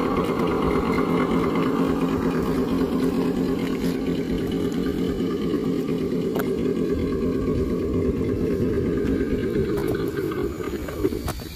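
A steady engine-like hum, a low even drone with a few held pitches, that fades out about ten seconds in.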